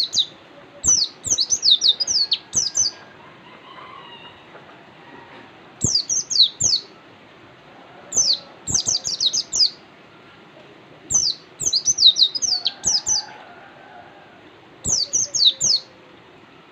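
Caged white-eye (pleci) singing in short, rapid phrases of high, downward-sweeping chirps, about five phrases with pauses of a second or two between them.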